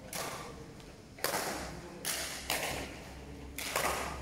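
Badminton rackets striking a shuttlecock during a rally, a series of sharp cracks about once a second, each ringing on briefly in the hall.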